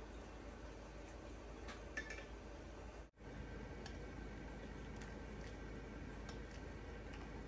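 Faint bubbling of a pot of boiling water as thin pork slices are swished through it with wooden chopsticks, with a few light clicks of the chopsticks.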